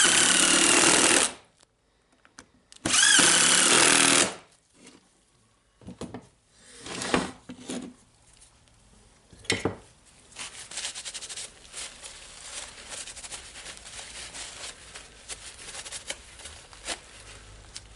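Electric screwdriver driving screws into an angle grinder's gear housing in two runs of about a second each, the second about three seconds in. Lighter clicks and rattling of parts follow.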